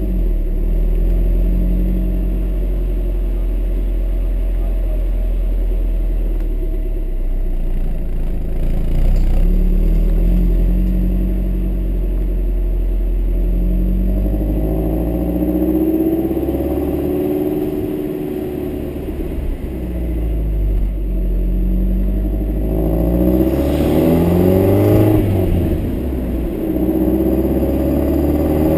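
Audi A4 B5 exhaust heard right at the tailpipe while the car is driven, a steady low drone whose pitch rises and falls several times with engine speed.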